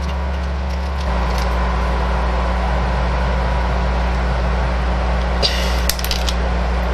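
Steady low hum, with a short cluster of small metallic clicks and taps about five and a half seconds in as a tiny drive screw falls into the open laptop's case.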